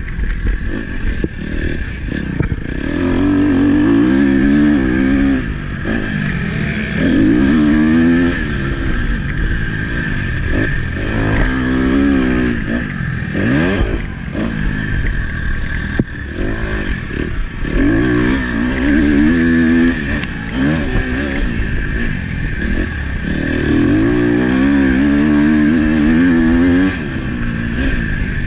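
KTM motocross bike engine under hard riding, revving up and backing off again and again, its pitch rising and falling every few seconds as the rider accelerates and shuts off around the track.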